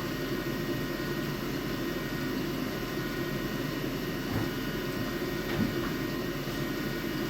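Steady low hum with a hiss over it, with a couple of faint knocks midway.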